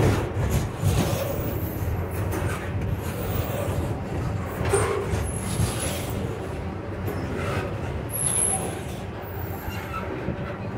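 Double-stack intermodal train of loaded well cars rolling over a short open-deck railway bridge: a steady rumble of steel wheels on rail with knocks and clatter. A few short high-pitched wheel squeals come through.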